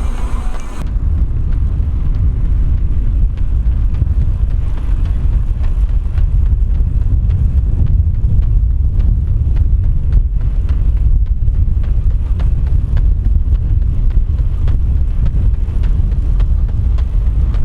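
Wind rumbling across the microphone of a runner doing a fast stride, with faint quick footfalls ticking through it.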